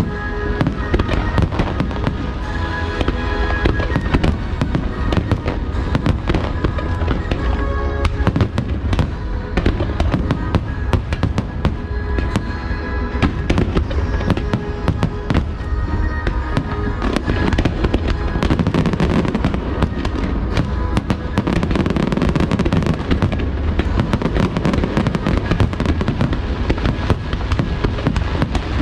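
Aerial fireworks going off in a rapid, continuous barrage of bangs, with show music playing under them that fades out a little past halfway, leaving only the fireworks.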